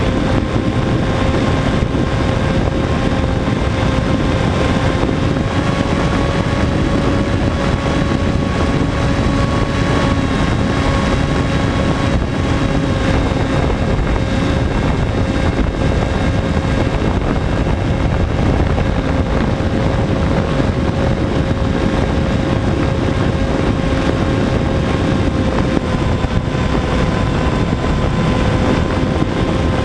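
Electric motor and propeller of a Sky Surfer RC plane running at a steady whine, its pitch shifting slightly a couple of times, with wind rushing over the onboard camera's microphone.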